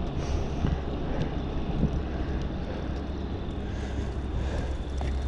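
Steady wind rush on the microphone of a rider on a fixed-gear bicycle: a low rumble with a thin hiss over it.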